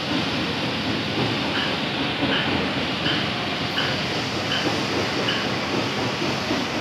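Machinery running with a steady noise and a short high squeak that repeats evenly, about every three-quarters of a second.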